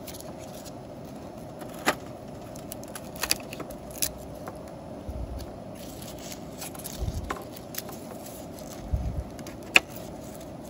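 A knife cutting garlic cloves on a wooden cutting board: a few sharp taps of the blade on the board, the loudest near the end, over a steady background hiss.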